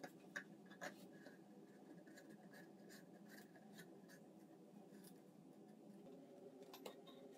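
Large light bulbs being handled and screwed into their sockets: faint light scraping and small clicks over a low steady room hum, with a few sharper clicks about half a second in, about a second in, and near the end.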